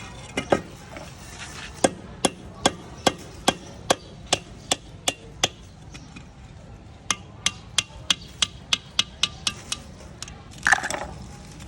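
Hammer striking repeatedly in two runs of sharp blows, about two to three a second, with a short pause between them, then a louder clatter near the end.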